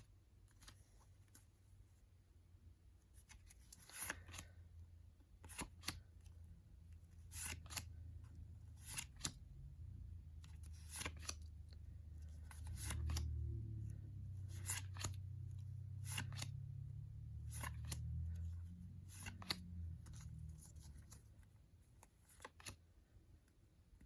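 Sticker packets being handled and opened by hand, with scattered short crinkles and snips. A low rumble swells in the middle and fades again.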